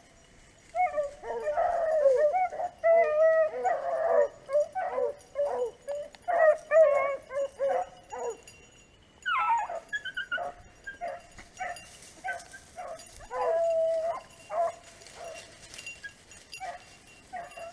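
Beagles baying as they run a rabbit: rapid, overlapping barks and yelps, thinning out after a long falling cry about nine seconds in.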